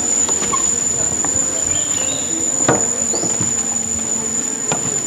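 Jungle insects give a steady, high-pitched drone. Footsteps knock now and then on the wooden boardwalk planks, the loudest about halfway through.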